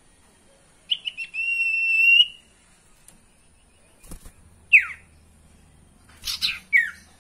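Common iora (sirtu, cipoh) calling: a few short notes, then a long steady whistle of about a second, followed by a falling whistled note and a quick cluster of harsher notes ending in another falling note. A knock about four seconds in, as the bird flits about its wire cage.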